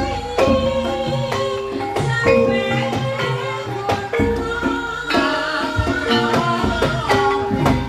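Live traditional Javanese incling ensemble music: a melody of ringing pitched tones that steps from note to note over regular hand-drum strikes.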